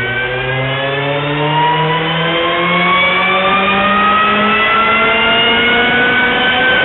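Car engine at full throttle on a chassis dynamometer during a power run, its pitch climbing steadily and getting slightly louder as the revs rise, then falling away right at the end as the throttle is lifted.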